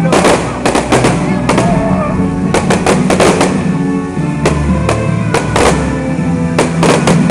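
Fireworks display: an irregular series of sharp bangs and crackles from aerial shells and fountains of sparks, over loud music playing throughout.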